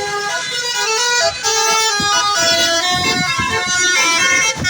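Bus basuri horn, a set of tuned air horns played like a keyboard, playing a tune in quick stepped notes.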